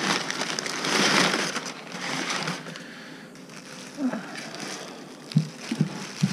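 Packaging rustling and crinkling as a boxed steering wheel is handled and unwrapped, loudest in the first couple of seconds, with a few short soft thumps near the end.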